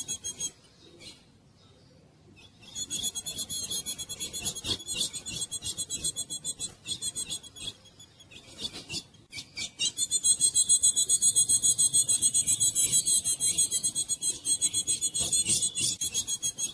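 Female ultramarine grosbeak (azulão) calling with a rapid, raspy buzzing chatter, many pulses a second, in long bouts. There is a pause of about two seconds near the start and a shorter break past the middle.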